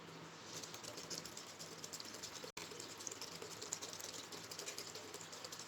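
Faint, rapid light clicking and crackling of ice being handled and put into cold water for mixing vaccine.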